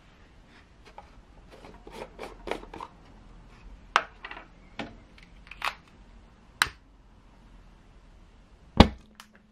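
Aluminium screw-top alcohol stove being opened and handled: scraping metal clicks as the lid is unscrewed, then several sharp single clicks of metal on metal. Near the end a loud sudden bang as the alcohol flares up on ignition, followed by a faint steady hum.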